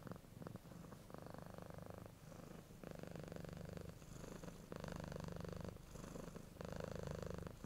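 A domestic cat purring faintly, in about four even bouts of a second or so, with short pauses between them.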